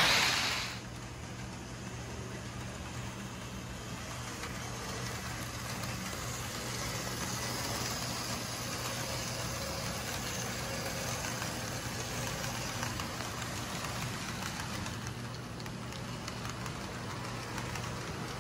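Märklin HO model train running on the layout: a steady whirring rumble with a low hum underneath.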